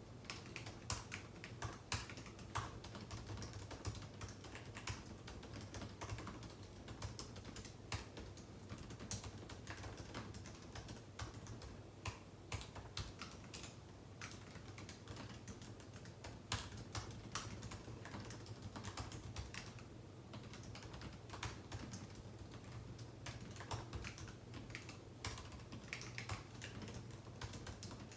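Continuous typing on a computer keyboard: quick, irregular key clicks with short pauses between bursts of words, over a low steady hum.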